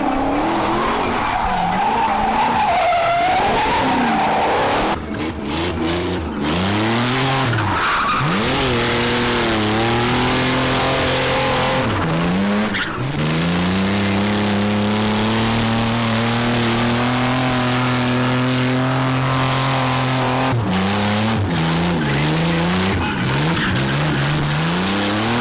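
A car engine revving hard while its tyres skid and squeal in a drift. The revs climb and dip several times, hold high for about seven seconds in the middle, then drop and rise again near the end.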